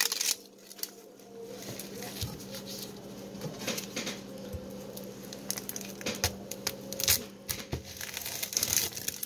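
Dry papery skin of a yellow onion crackling and tearing in irregular bursts as gloved fingers peel it off, with a knife starting to cut through the onion near the end.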